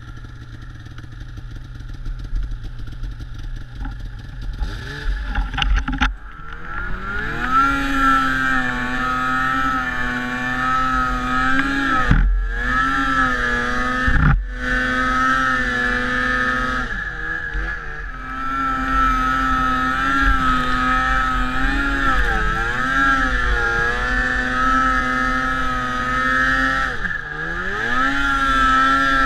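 Snowmobile engine ticking over, then opened up about five seconds in and held at high revs as the sled rides through deep snow. The note drops briefly and climbs again several times as the throttle is eased and reapplied.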